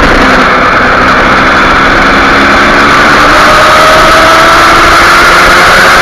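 Kawasaki Ninja 250R's parallel-twin engine running hard on track. Its note eases slightly in the first second or two, then climbs steadily as the bike accelerates out of a bend, under heavy wind rush on the bike-mounted microphone.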